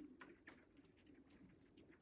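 Thawing lake ice on Lake Päijänne, faint: a low hum fading away at the start, then scattered small ticks and crackles of the ice cover breaking up.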